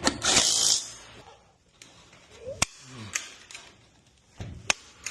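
A can of spray grease hissing for under a second, then a few sharp metallic clicks and knocks with a short squeak as parts of the garage door opener are handled.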